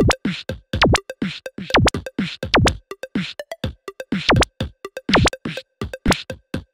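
Electronic background music: a drum-machine beat of short, quick hits, each with a tone that drops sharply in pitch, several a second.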